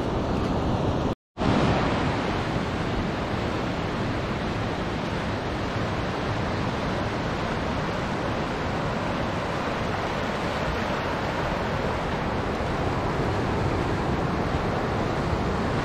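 Steady, even rushing noise, broken by a split-second dropout about a second in.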